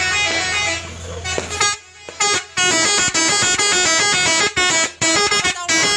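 Trucks' telolet horns playing tunes: loud multi-note horn phrases whose pitch steps up and down every fraction of a second. A low engine hum runs underneath for the first second and a half, and there is a brief break near two seconds.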